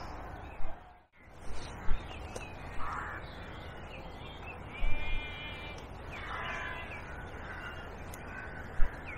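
Short, harsh animal calls, like a bird cawing, come twice: about five seconds in and again right at the end. Between them are a few brief knocks over a steady outdoor background.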